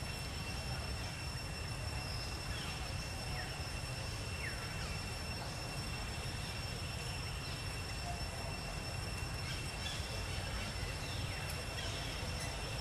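Outdoor ambience: a steady low rumble with a constant thin high tone over it, and scattered short, falling bird chirps throughout.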